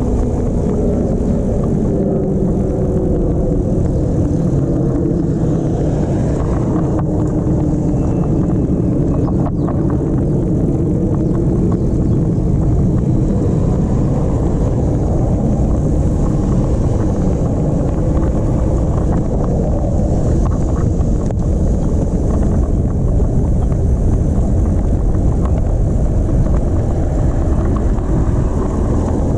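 Steady wind rush and road rumble while riding an all-wheel-drive e-bike on the road, with a faint hum that drifts in pitch over the first several seconds.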